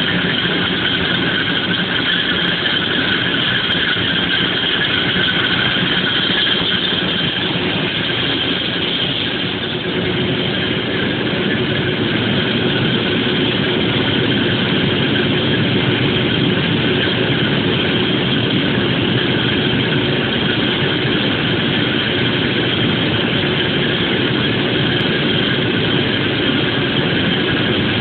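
HDTM M33 three-strand twisted rope making machine running at a steady speed while twisting rope: a continuous mechanical din from its motor and spinning strand bobbins, with a steady high whine over it.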